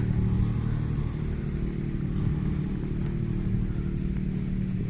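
Rally car engine idling steadily, with no revving.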